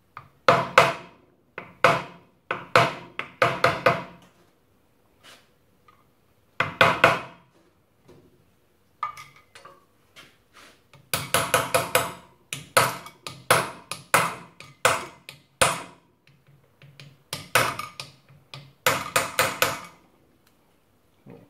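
Hammer tapping a round punch to bend new metal lock tabs over the flats of the rear sprocket nuts: sharp metallic taps, each ringing briefly, in quick clusters of several blows with short pauses between.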